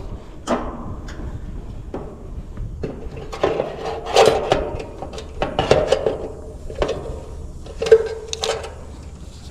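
Irregular metallic clanks and clicks as a failed AC run capacitor is taken out of the outdoor condenser unit, several of them ringing briefly like a metal can or panel being knocked.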